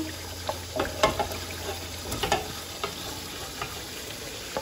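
Pot of hot, oily meat masala sizzling as par-cooked cauliflower florets are tipped in from a frying pan, with scattered light knocks and scrapes as the pan is emptied.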